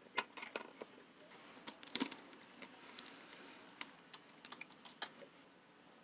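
Faint, irregular small clicks and taps of hand tools working the clamps that hold the carburetor onto a Yamaha DT175's intake and airbox boots, as they are tightened. The sharpest clicks come just after the start and about two seconds in.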